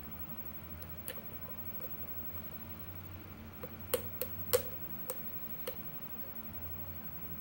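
Small sharp metallic clicks from a lock pick working the pin tumblers of a pin-tumbler lock during single-pin picking. One click comes about a second in, then a cluster of several between about three and a half and six seconds in, over a steady low hum.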